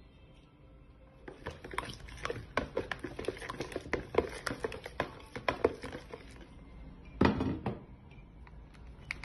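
Metal spoon stirring thick yogurt batter in a plastic mixing bowl, with rapid scraping and clicking against the bowl for several seconds. Near the end there is a single louder knock, as of a glass baking dish set down on a wooden table.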